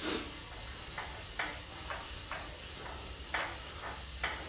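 About eight short, irregular clicks over a low steady hum, the loudest right at the start and two more strong ones later on.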